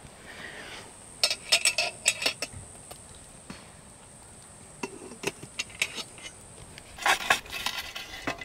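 Metal shovel scraping and clanking against a steel fire-pit ring as hot coals are dug out of the campfire, in three bursts of scrapes and knocks.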